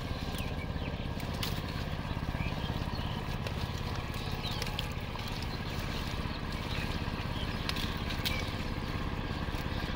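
A small engine running steadily, a low hum with a rapid pulse and no change in speed, with a few faint clicks over it.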